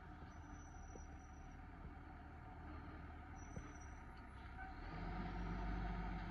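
Automated side-loader garbage truck running at a distance, a steady low engine rumble that swells about five seconds in as the engine revs for the lifting arm reaching for a curbside cart.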